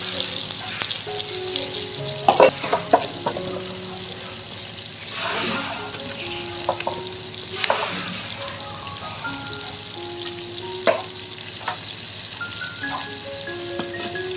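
Food sizzling in a hot frying pan as it is stirred, with a few sharp knocks of a spatula against the pan, the loudest a quick cluster about two seconds in. Soft background music plays underneath.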